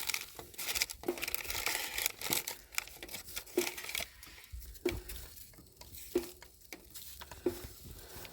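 Snow crackling and sizzling on a hot Dutch oven as it turns to steam for baking bread, strongest in the first few seconds. A soft tick repeats about every 1.3 seconds.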